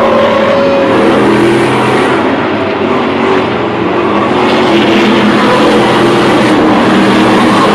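A pack of Stadium Super Trucks' V8 engines running hard together, several engines overlapping in a loud, steady sound as the trucks race past and over a jump ramp.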